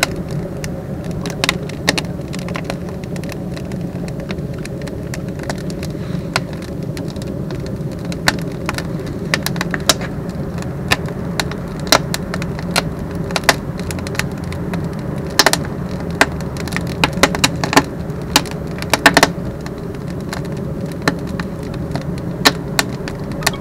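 Cast refractory-concrete batchbox rocket burner burning a firebox full of small construction timber: a steady low rumble of the fire drawing, with many sharp crackles and pops from the wood as it catches.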